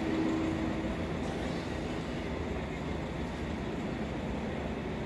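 Steady low rumble of vehicle noise, with a short steady hum in the first second.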